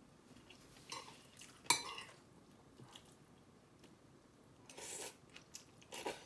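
A spoon clinking and scraping against a bowl of bibimbap, with a sharper clink just under two seconds in, between quiet chewing and mouth sounds.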